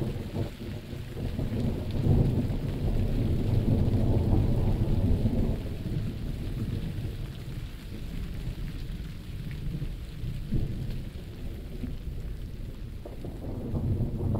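Rolling thunder rumbling over steady rain. One long peal swells about two seconds in and dies down after about five seconds, and another begins to build near the end.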